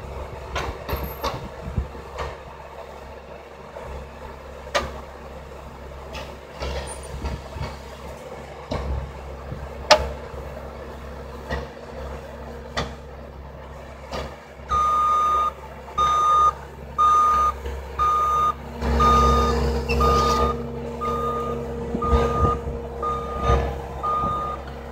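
Bobcat S630 skid-steer loader's diesel engine running under a tree-spade attachment, with occasional sharp metal knocks. About two-thirds of the way in, the loader's backup alarm starts beeping steadily about once a second as it reverses away from the dug tree, and the engine gets louder for a few seconds.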